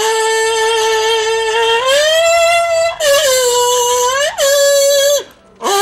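Trailer score: a lone high voice singing long held notes. The voice slides up a step about two seconds in and breaks off briefly near the end.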